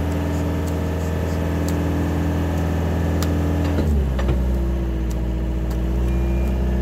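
Engine of a heavy vehicle running at raised revs, then dropping to a lower, steady speed about four seconds in. A faint high beeping starts near the end.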